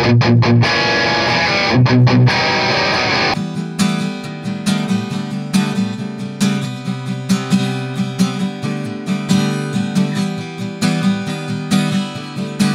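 An electric guitar played through a speaker cabinet sounds gritty and distorted, as if overdriving the microphone although the amp is set low. About three seconds in, it gives way to an acoustic guitar strummed in chords. Both are recorded close up with a Sennheiser HandMic Digital dynamic microphone.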